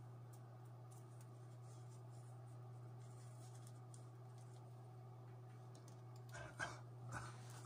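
Faint paper rustling from a cigarette being hand-rolled between the fingers, over a steady low hum, with a few short louder rustles and knocks near the end.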